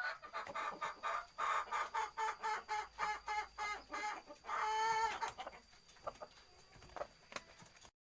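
A chicken clucking in a quick string of short calls, about three a second, then one longer drawn-out call about five seconds in, before the calls fade away.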